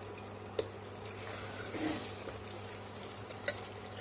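A metal ladle stirring thick, browned mutton masala in an aluminium pressure cooker, with sizzling that swells about a second in. The ladle clinks against the pot twice, over a steady low hum.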